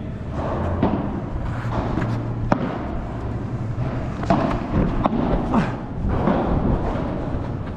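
Padel ball struck by rackets and bouncing on the court: a string of sharp hits at irregular intervals, about a second apart, in a large indoor hall.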